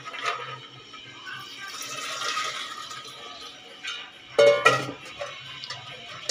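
Water poured over soaked kidney beans in a stainless steel pressure cooker, then a short ringing metal clank about four and a half seconds in.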